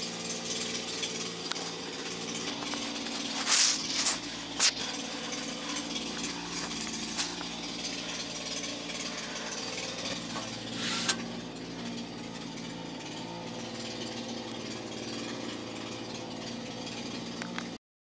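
Kubota mini excavator's diesel engine running steadily while its bucket digs in sand, with a few sharp scrapes or clanks around four seconds in and again near eleven seconds. The sound cuts off suddenly near the end.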